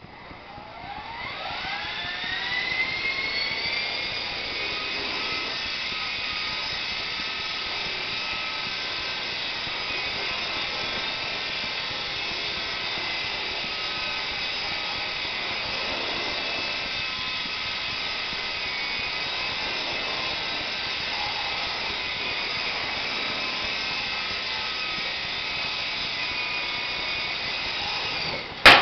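Small electric RC helicopter (Honey Bee FP, fixed-pitch) spinning up: its high motor-and-gear whine rises in pitch over the first few seconds, then holds steady through the flight. Near the end it strikes something with a sharp crack and the whine cuts off as it crashes.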